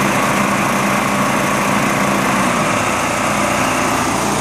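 Robinson Subaru EH18 6-horsepower single-cylinder engine on a Snapper walk-behind mower, running steadily. Its note shifts slightly about halfway through.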